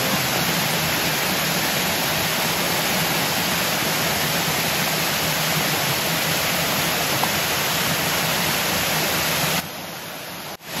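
A waterfall's steady rushing water. It drops to a quieter level about a second before the end.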